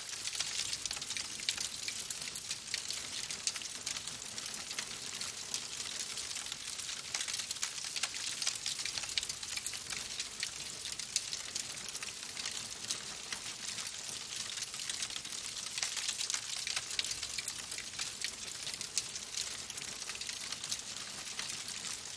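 Wood fire crackling in a fireplace: a dense run of small snaps and pops over a steady hiss.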